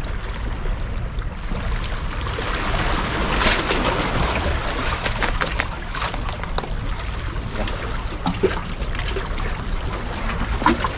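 Seawater washing and splashing along a rocky shore, rising in a wave of hiss about three and a half seconds in, over a steady low rumble. A few sharp clicks sound in the second half.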